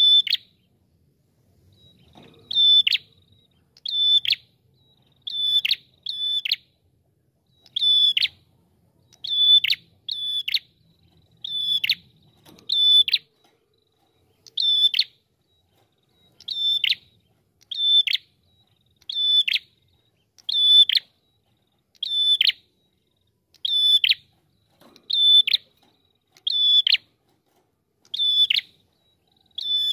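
Ashy tailorbird (prenjak kepala merah) calling: a short, sharp note repeated about once a second, each one dropping steeply in pitch, some given in quick pairs, with a pause of a couple of seconds about halfway through.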